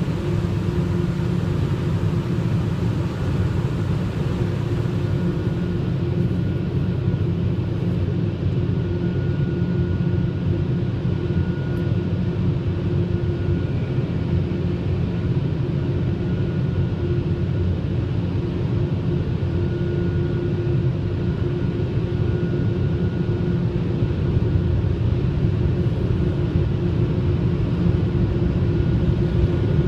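Steady low mechanical rumble with a faint, even hum on top, unchanging throughout.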